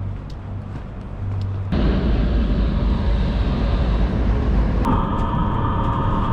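Low rumble of city street traffic with a tram nearby. About five seconds in, it changes to the ride inside a moving public-transport vehicle, with a steady high whine over the rumble.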